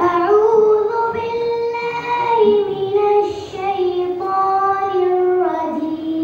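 A boy's voice chanting a melodic Islamic recitation into a microphone, amplified through the hall's loudspeaker. He holds long notes and moves between them in small steps, settling on a lower note near the end.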